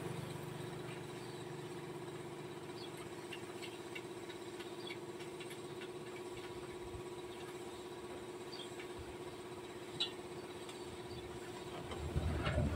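PowerStar 2HP electric air compressor running steadily, a constant hum with faint scattered ticks, as its tank fills with air.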